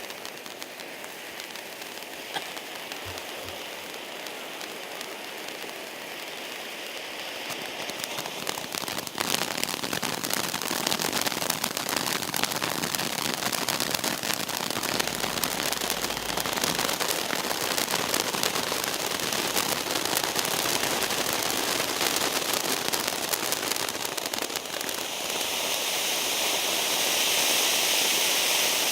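Firework fountain spraying sparks with a steady hiss that grows louder about seven seconds in and fills with dense crackling. Near the end a brighter, higher hiss takes over.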